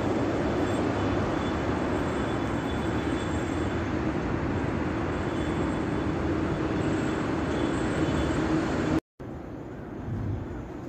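Steady outdoor city background noise, a constant rumble with no distinct events. It cuts off abruptly about nine seconds in and gives way to quieter open-air ambience.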